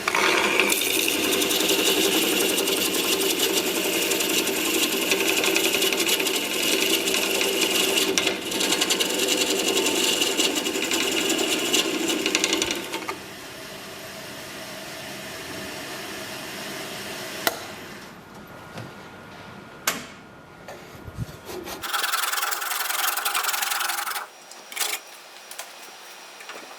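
Wood lathe turning a crotch-wood bowl with something rubbing steadily against the spinning wood for about the first half. It stops suddenly, leaving a quieter stretch with a few sharp clicks, then a shorter burst of rubbing near the end.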